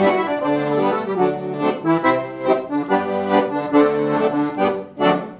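Piano accordion playing an instrumental passage of a gaúcho folk song: a melody of many short notes over a steady rhythmic accompaniment.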